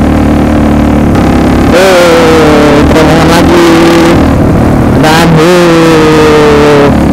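Yamaha Jupiter MX motorcycle's single-cylinder four-stroke engine under way, revving up twice, about two seconds and five seconds in, the pitch jumping up and then sagging slowly, over steady wind and road rush.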